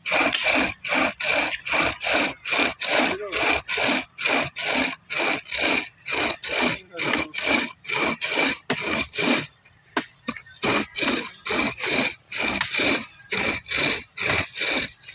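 A saw chain drawn back and forth through a tree trunk, rasping through the wood in even strokes about three times a second.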